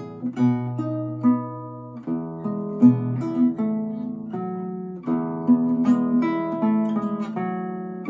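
An 1852 Augustin Altamira Codina classical guitar played solo with the fingers: a steady run of plucked notes ringing over held bass notes.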